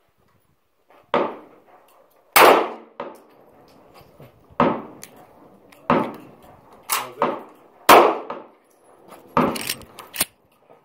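A string of about ten sharp metallic clangs at irregular intervals, each ringing briefly: steel targets being struck by shots.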